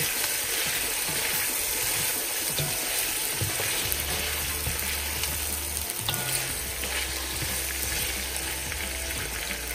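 Boiled mutton pieces and tomato slices sizzling steadily in hot oil in a non-stick pot while being stirred with a wooden spatula, the bhuna stage of frying the meat.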